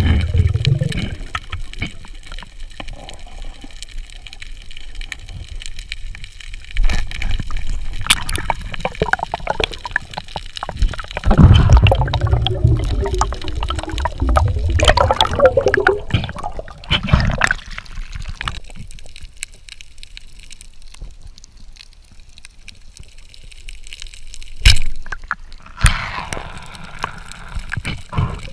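Muffled underwater water noise and bubbling picked up through an underwater camera housing, changing abruptly where clips are spliced, with a few sharp clicks.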